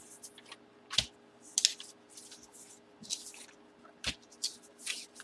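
Hands handling trading cards and their packaging on a table: irregular crinkly rustling with a few sharp taps, the loudest about a second in and again around four seconds.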